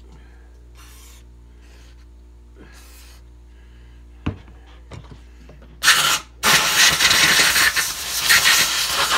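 A single knock about four seconds in, then a short spray and, after a brief break, a long steady loud hiss from an aerosol can of brake cleaner sprayed onto oil pump parts.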